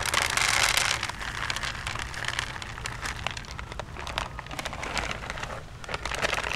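Fishing pellets rattling and a plastic bait bag crinkling as carp bait is loaded, loudest in the first second.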